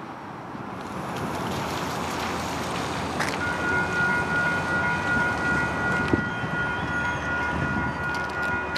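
A steady rushing noise; about three seconds in, a railroad grade-crossing warning bell starts ringing as the crossing gates lower for an approaching train. There is a single click about six seconds in.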